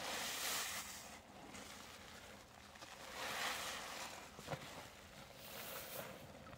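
Hands squeezing and crumbling a clump of cleaning-powder paste, in three swells of soft crumbling hiss, with a small sharp click about four and a half seconds in.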